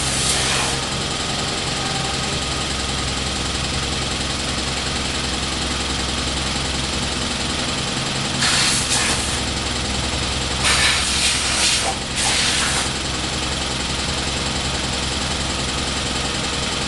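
Three short hissing blasts of air blowing dirt out of a riding mower, over a steady engine hum.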